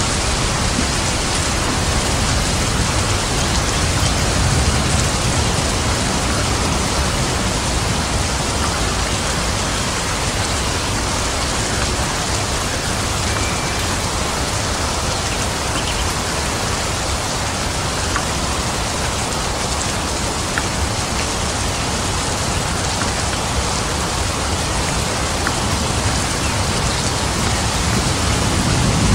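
Rain falling steadily, an even, unbroken hiss of drops.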